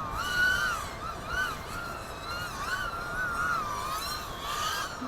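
FPV racing quadcopter's brushless motors and propellers whining, the pitch rising and falling constantly as the throttle changes, with several motor tones at slightly different pitches.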